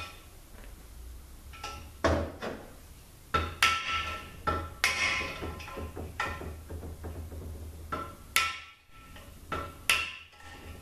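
Hammer striking metal on a 42RLE automatic transmission case to knock a rod out: about half a dozen irregular sharp blows, each with a brief metallic ring.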